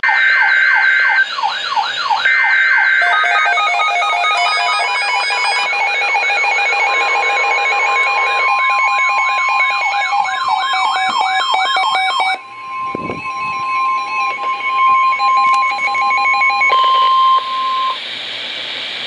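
Several weather alert radio alarms sounding at once: wavering siren wails and rows of fast repeated beeps layered over a long steady tone. The steady tone ends near the end, and the beeps and wails drop out shortly before it.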